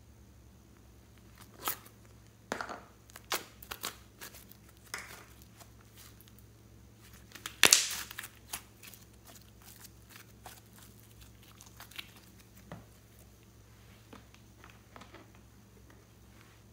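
Irregular crinkling and tearing crackles, sharp and scattered, loudest about eight seconds in.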